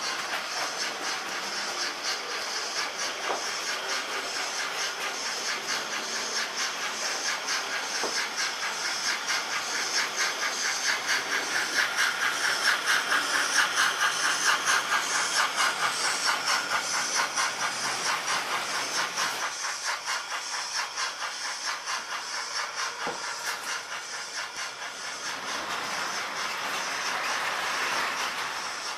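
Model freight train on 0m-gauge metal track rolling past: a steady rattle and hiss of wheels on rail with fast, even clicking over the rail joints. It is loudest about halfway through as the wagons pass close, drops off later, then rises again near the end.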